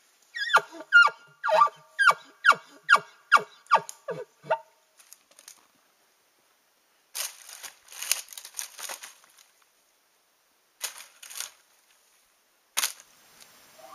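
Elk call blown through a bugle tube: a quick run of about ten loud notes, each sliding down in pitch, roughly two and a half a second, stopping after about four and a half seconds. Later come brief rustles and a few short knocks.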